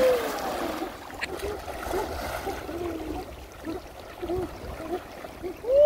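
Water splashing as people lunge and wade through shallow muddy water, loudest at the very start, with short voice-like calls and wading sloshes through the rest.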